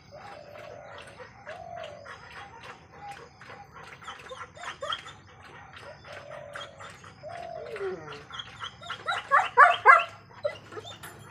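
A dog eating from a stainless steel bowl, with a run of small crunches and clinks. A dog whines in long drawn-out tones, one falling in pitch, and about nine to ten seconds in gives a short burst of louder barks.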